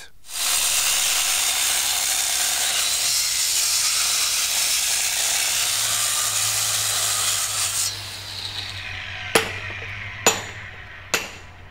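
Bosch angle grinder cutting into a stone slab: a loud, steady grinding that cuts out about eight seconds in and winds down. Then three sharp hammer blows on a stonemason's chisel driven into the slab, a little under a second apart.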